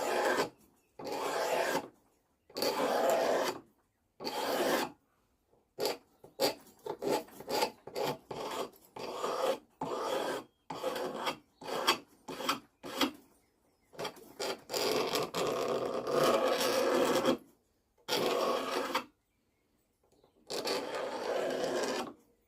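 A scraper drawn along a tack hammer's wooden handle in repeated strokes, shaving the surface smooth. Some strokes are long, a second or more each, with a run of quicker, shorter strokes in the middle.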